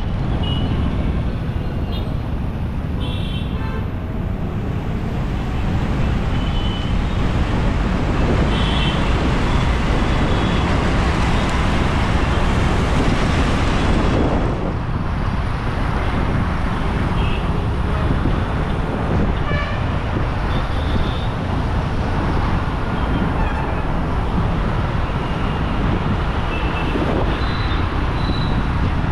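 Steady city traffic noise with wind rumble on the microphone of a moving bicycle, and several short horn toots here and there.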